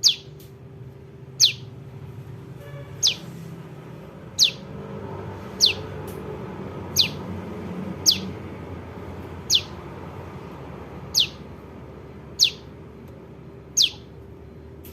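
Juvenile prenjak lumut calling: a short, sharp note falling in pitch, repeated eleven times at an even pace of about one every second and a half, over a low steady hum.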